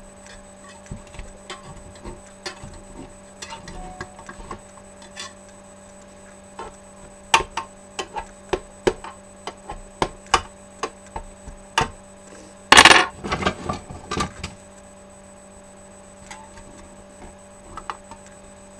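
Knife and spatula clicking, tapping and scraping against a metal loaf pan as a piece of turkey meatloaf is cut and lifted out, with one louder clatter about two-thirds of the way through. A steady electrical hum runs underneath.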